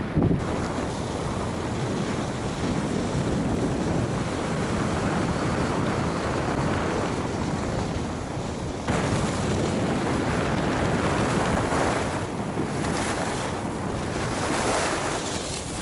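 Wind rushing over the camera microphone and skis hissing over groomed snow on a steady downhill run, a continuous noise that turns brighter and a little louder about nine seconds in.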